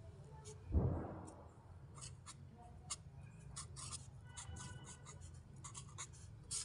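Marker pen writing on a white board: a run of short, quick strokes from about two seconds on, after a single dull thump just under a second in.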